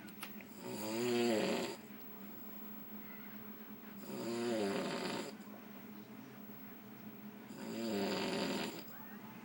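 A man snoring heavily in deep sleep: three snores, each about a second long, roughly three and a half seconds apart, with quieter breathing between.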